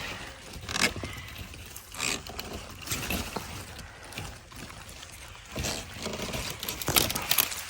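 Zucchini plants' large leaves rustling and stems crackling as zucchinis are picked, in several short bursts of noise.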